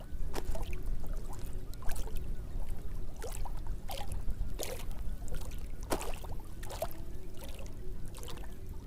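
Water splashing and sloshing in short, irregular strokes over a steady low rumble, as a fishing net is worked in the water.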